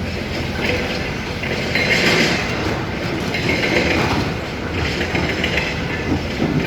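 Hyundai HX 220L crawler excavator working: its diesel engine runs steadily under a rattling, clanking metal clatter that swells and fades every second or so.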